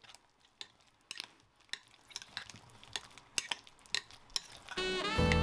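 Metal spoon stirring button mushrooms through a thick yogurt and spice marinade, with irregular clicks and scrapes against the bowl. Music comes in near the end.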